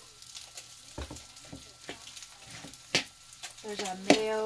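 Food frying faintly in a pan, with clicks and knocks from handling a mayonnaise jar and a plastic mixing bowl; the sharpest click comes about three seconds in. Near the end comes a held, hummed vocal note.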